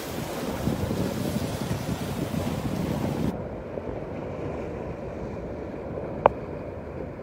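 Surf washing against the rocks of a breakwater, with wind buffeting the microphone. The hiss drops away abruptly about three seconds in, and there is a single sharp click near the end.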